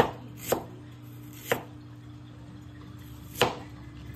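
Chef's knife slicing fresh ginger on a plastic cutting board: four separate knife strokes knocking against the board, irregularly spaced, the last about three and a half seconds in.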